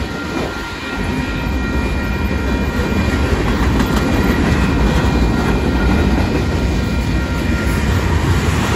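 Freight train tank cars and covered hoppers rolling past, a steady rumble of wheels on rail that grows louder about a second in, with faint steady high ringing tones over it.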